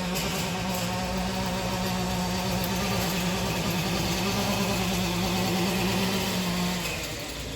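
Electric drive motor of a Qlife Racer e-mountain bike whining at a steady pitch under way, over tyre and wind noise. Near the end the whine drops away as the bike slows.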